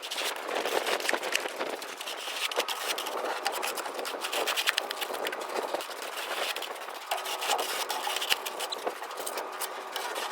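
A shovel scraping and chopping through packed snow and ice in a dump trailer bed, in quick irregular strokes, with a faint steady hum from about two seconds in.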